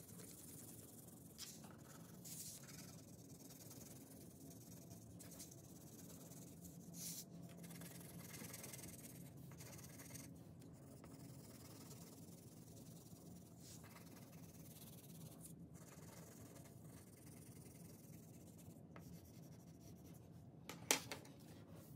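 Faint scratching of a crayon stroking across paper as a drawing is coloured in, with a sharp click near the end.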